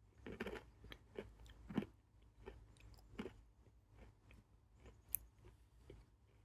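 Close chewing of a spoonful of yogurt with crunchy chocolate cookie pieces mixed in: irregular wet smacks and small crunches, the loudest in the first two seconds. A single sharp click about five seconds in.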